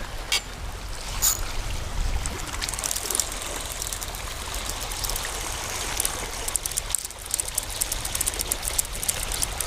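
Ocean water washing and trickling over a rocky shoreline. In the second half there is a steady, light crackle of fine ticks.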